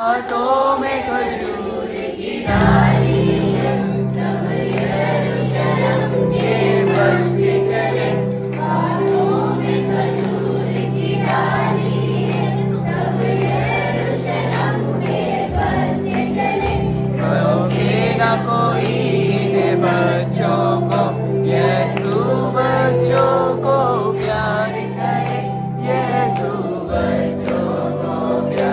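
A group of children singing a Christian song together over an accompaniment of sustained low notes, which enter a couple of seconds in and drop out briefly twice.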